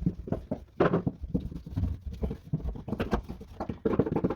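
Quick, irregular tapping and pressing of foil-faced butyl sound deadener, worked into the car's floor with the ball end of a screwdriver handle.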